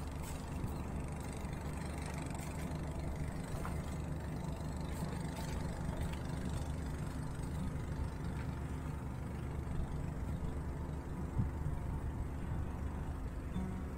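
A vessel's engine running steadily, a low even hum that holds one pitch throughout, with a faint knock about eleven seconds in.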